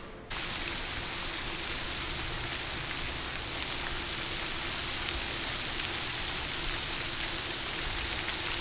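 Fountain jet in a lake spraying water into the air and splashing back onto the surface: a steady rushing hiss that starts suddenly just after the beginning.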